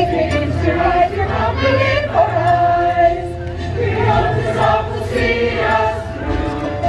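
A group of voices singing together in chorus, holding and changing notes together.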